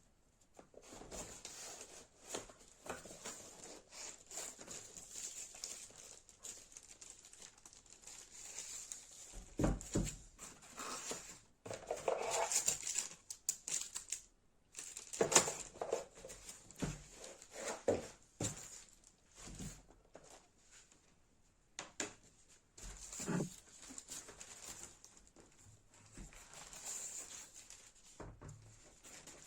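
Packaging being handled: irregular crinkling and rustling, with a few soft thumps.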